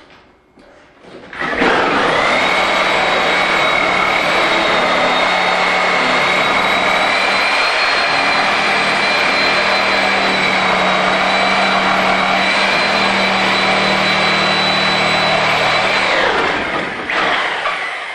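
Reciprocating saw cutting through a wooden two-by ceiling joist. The motor starts about a second and a half in, runs at a steady pitch with a constant whine for about fourteen seconds, then winds down.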